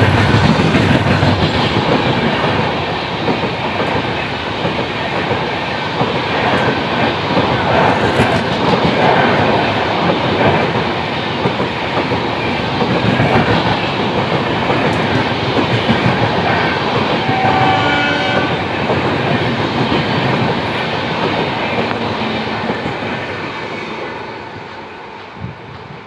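Passenger coaches of an express train running through a station at speed: a steady rumble with the clatter of wheels over rail joints. There is a brief pitched tone about 18 seconds in, and the noise fades near the end as the last coach passes and recedes.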